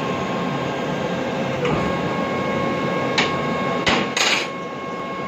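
Rotary screw air compressor (a Worthington Creyssac Rollair, rated 11 kW) running with a steady hum and a high, steady whine. A few sharp knocks sound over it past the middle, the loudest near the end.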